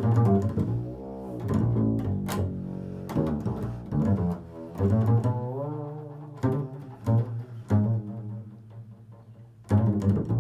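Improvised solo music on a low-pitched string instrument: plucked notes with sharp attacks mixed with held notes that slide up and down in pitch.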